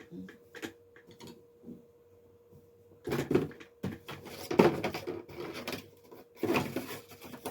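Camera accessories and their packaging being handled and unpacked: a few light clicks, then from about three seconds in louder rustling and clattering, under a faint steady hum.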